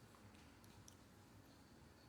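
Holmes Blizzard One Touch desk fan running on low speed, very quiet: only a faint low hum with a few faint ticks.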